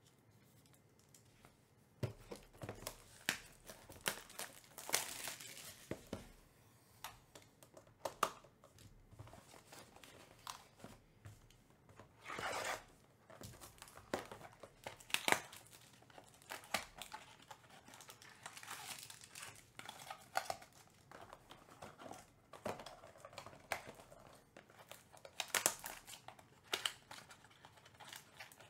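Trading-card packs being torn open and their foil wrappers crinkled, with the cards handled: irregular rips, rustles and crackles, starting about two seconds in.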